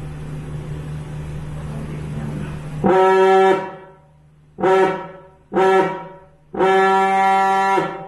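Gamewell Type B diaphone fog horn sounded on compressed air: a steady hiss and hum, then four deep blasts, a longer one, two short ones and a final long one, each dying away briefly after it cuts off. It is very loud.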